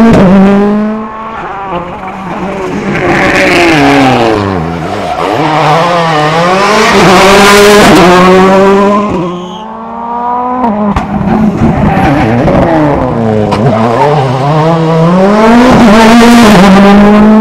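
World Rally Car 1.6-litre turbocharged four-cylinder engines revving hard, the pitch climbing and dropping sharply several times as the cars accelerate and brake through the stage.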